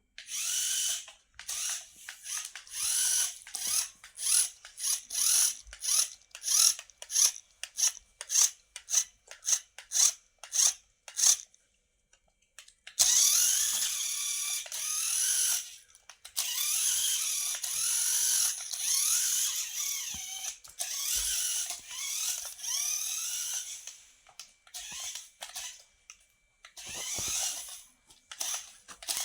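Small electric motor and gearbox of a climbing car whirring, first in a rapid series of short bursts, then in longer runs whose pitch rises and falls as the motor speeds up and slows, with a last short burst near the end.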